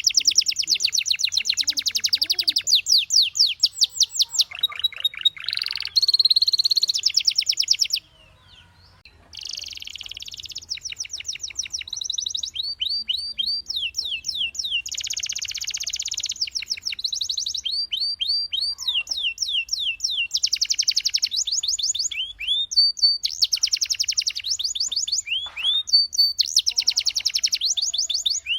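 Domestic canary singing a long song of fast trills and rolls, each a rapid run of repeated high notes, with a brief pause about eight seconds in.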